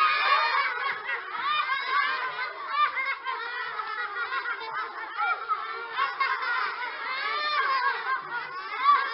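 A crowd of children laughing together, many high voices overlapping without a break.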